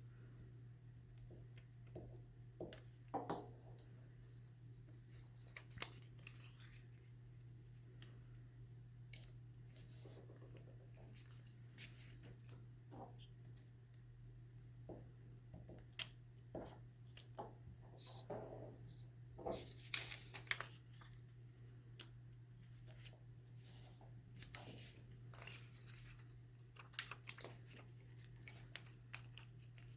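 Paper strips being handled and folded: scattered faint rustles, crinkles and small taps of paper as strips are laid on and creased back and forth, with a busier stretch around the middle. A steady low hum runs underneath.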